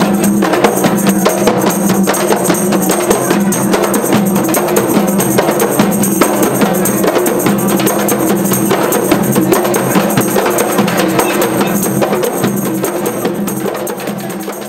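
An ensemble of kompang frame drums struck by hand in a fast, dense interlocking rhythm, easing off slightly near the end.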